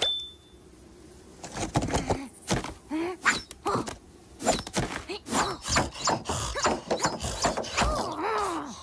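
Cartoon slapstick sound effects: a busy run of knocks and thuds mixed with short wordless grunts and groans from the animated characters, starting after a quiet first second or so.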